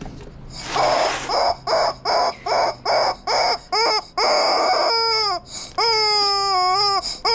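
Rubber chicken toy squeezed over and over: first a quick run of short breathy squeaks, then, from about five seconds in, long drawn-out squawks that sound like a baby crying.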